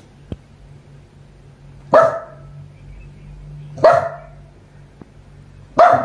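Small dog barking at her own reflection in a mirror: three sharp single barks about two seconds apart.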